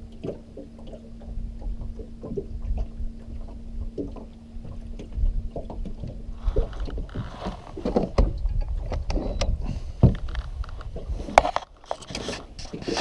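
Low wind rumble and rustling on the microphone in a small fishing boat, with a steady low hum through the first half. From about halfway on, clothing and gear are moved about, giving louder rustling and several sharp knocks.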